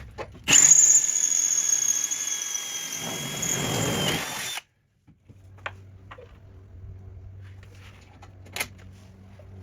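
Power drill running steadily with a high whine for about four seconds, then cutting off sharply. A faint low hum and a few light clicks follow.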